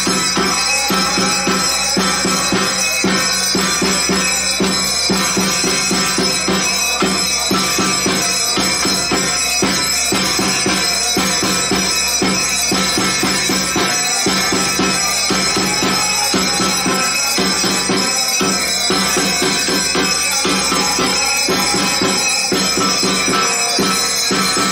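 Hindu temple aarti music: a fast, even drumbeat of about four to five strokes a second over a continuous drone, with high ringing tones held above it.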